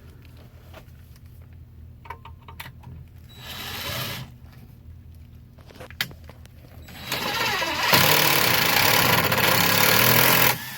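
DeWalt cordless impact driver driving a sheetrock screw through a junction box's metal mounting plate: a short burst about three and a half seconds in, then a long loud run from about seven seconds that stops suddenly near the end, as the screw strips and its head snaps off. A steady low hum sits underneath.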